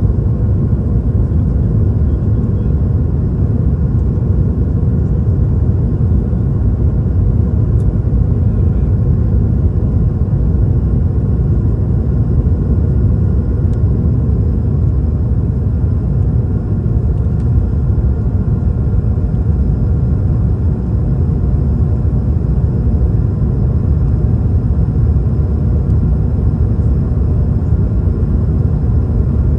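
Steady cabin rumble of a Swiss Airbus A220-300, the sound of its Pratt & Whitney geared turbofan engines and airflow heard from inside the cabin, with faint steady whine tones above the low rumble.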